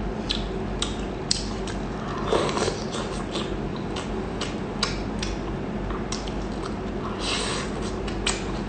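A person biting and chewing food, with irregular sharp clicks and wet smacks.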